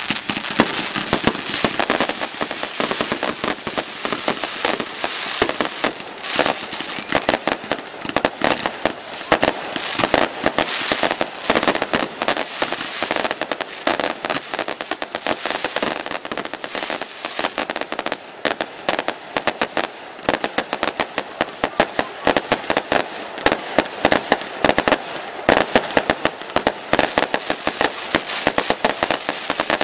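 Fireworks going off in a dense, unbroken barrage of sharp bangs and crackles, many per second.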